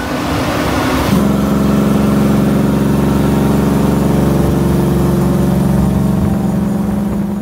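Heavy truck's diesel engine running close by. A loud, steady engine note sets in about a second in and holds without changing pitch.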